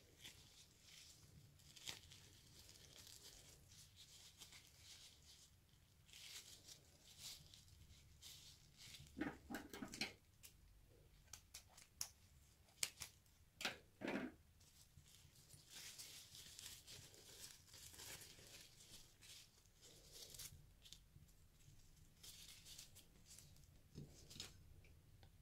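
Faint handling of a wet rubber balloon skin from a water-bead stress ball, crinkling and peeling, with a cluster of sharp scissor snips cutting the rubber around the middle. Near the end a hand stirs gel water beads in a glass dish.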